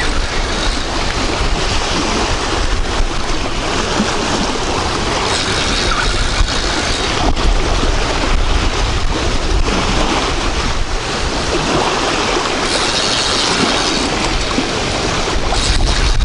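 Strong wind buffeting the microphone in a steady low rush, with waves washing on the water.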